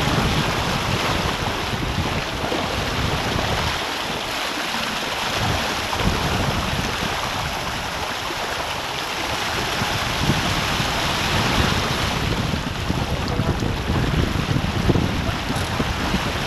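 Water rushing along the hull of a Hobie 33 sailboat moving under sail, mixed with wind noise on the microphone.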